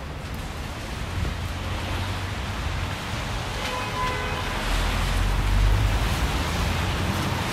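Street ambience in wet snow: a steady hiss of tyres and slush on a wet road, with a vehicle's low rumble swelling about five seconds in and fading toward the end. A brief faint tone sounds about four seconds in.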